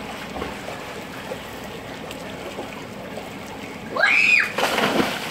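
Steady wash of swimming-pool water against the edge and gutter. About four seconds in, a child gives a loud rising-and-falling shout as she jumps into the pool, followed at once by a splash.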